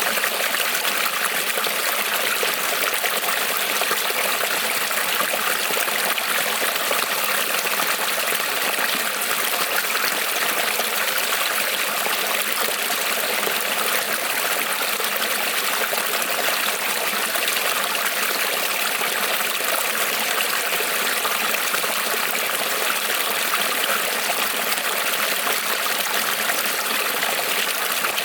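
Small creek rippling and trickling over stones, a steady even rush of flowing water with no change.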